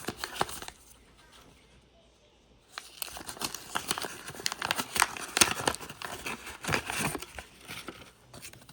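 A sports-card pack wrapper being torn open and crinkled by hand: a brief crinkle, a short pause, then several seconds of crackling and tearing.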